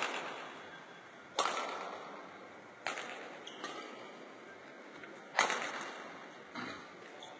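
Badminton rackets striking shuttlecocks: six sharp cracks at uneven intervals of one to two seconds, the loudest about five seconds in, each ringing briefly in a large hall.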